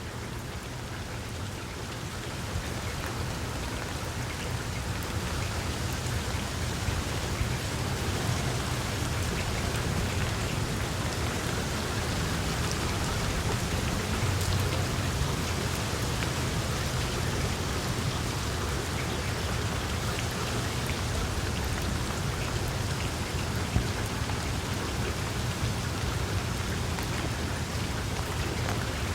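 Steady rain falling on tree leaves, with many separate drops ticking through the hiss and a low rumble underneath. It grows a little louder a couple of seconds in, then holds even.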